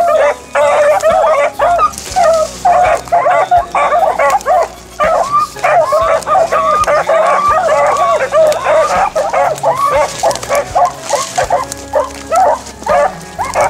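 A pack of beagles baying in full cry, several hounds giving voice over one another in a continuous chorus: the sound of hounds running a rabbit's scent trail.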